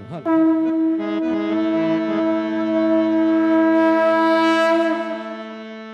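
A conch shell (shankh) is blown in one long, steady, horn-like note, as the aarti begins. It fades after about five seconds, over a held harmonium drone that changes a few low notes early on.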